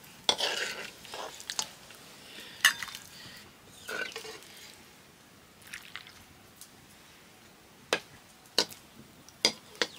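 Metal spoon and ladle clinking and scraping on stainless steel plates as chicken curry is served onto rice. There are a handful of separate sharp clinks, with softer scrapes between them.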